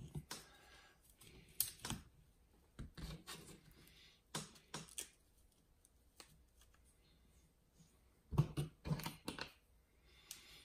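Light clicks and knocks of hard plastic and metal RC truggy chassis parts being handled and fitted by hand, coming in small clusters with quiet gaps between.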